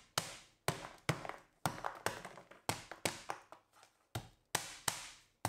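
Stainless steel hand pounder striking lemongrass stalks on a plastic cutting board to crush them: about a dozen sharp, irregular blows roughly half a second apart, with a short pause a little past halfway.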